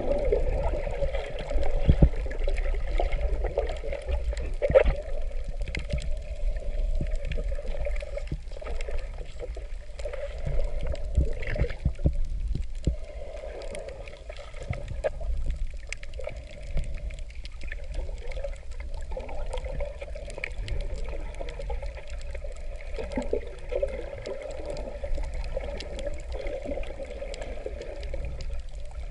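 Muffled water noise heard underwater: gurgling and sloshing over a steady low rumble, with many small clicks scattered throughout.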